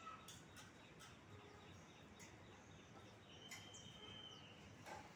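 Faint rain: a soft hiss with scattered drops ticking on leaves, and one thin whistled note held for about a second a little past halfway through.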